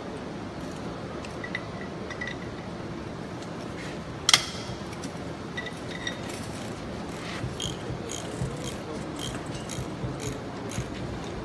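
Hand wrenches and loosened bolts clinking against the steel flange of a KUKA six-axis robot arm's first axis during dismantling: scattered light metallic clinks, with one sharp, ringing clink about four seconds in.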